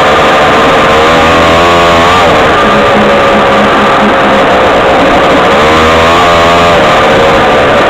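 Off-road vehicle's engine running hard along a dirt trail, very loud on the onboard microphone. Its pitch swings up and back down twice as the throttle is worked.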